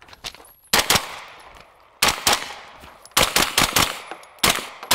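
Pistol-caliber carbine fired rapidly at several targets: about nine sharp shots, mostly in quick pairs with short pauses between the pairs, each shot leaving a brief ringing tail.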